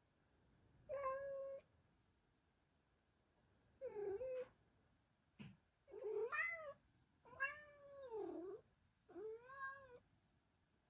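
Minuet cat meowing five times, short calls spaced a second or two apart, several rising and falling in pitch, the fourth one long and drawn out.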